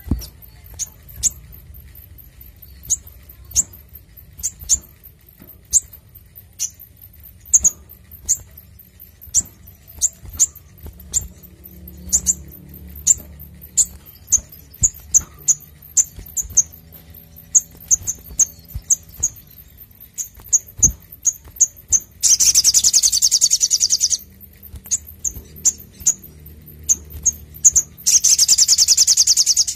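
Male olive-backed sunbird calling with sharp high chirps, one or two a second. Twice, about two-thirds in and again near the end, it breaks into a rapid, dense high trill lasting about two seconds: the full 'nembak' song.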